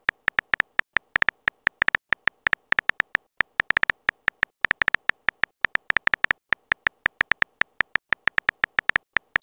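Simulated phone keyboard typing clicks: a quick, slightly uneven run of short ticks, about six a second, one per letter as a text message is typed out.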